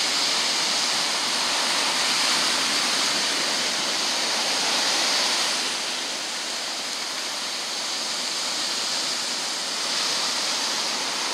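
Surf washing up on the beach, a steady hiss of breaking waves that eases a little midway and builds again toward the end.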